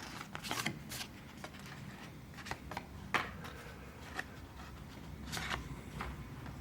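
Paper art cards being handled and shuffled: scattered soft rustles and light clicks, a few slightly sharper ones about three and five seconds in.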